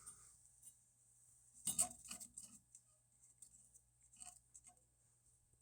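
Near silence with a low steady hum, broken by a few faint clicks and rattles about two seconds in and again a little after four seconds.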